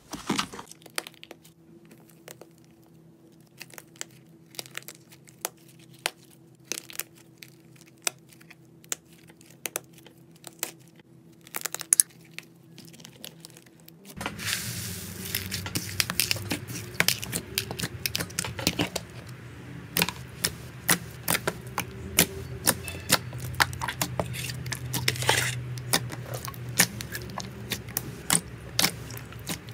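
Slime being pressed and squeezed by hand, close up: scattered sticky clicks and pops. About halfway in, a denser, louder crackling takes over as a cracked crust of clay is squeezed and crumbles.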